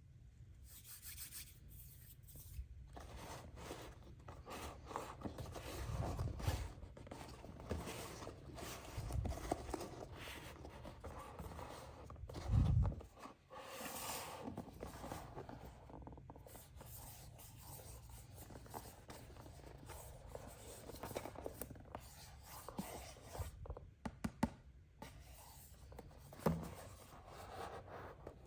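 Hands handling and rubbing a toy blind-box package: quiet, continuous scratchy rubbing and scraping with small clicks and a few low thumps, the loudest about two-thirds of the way through.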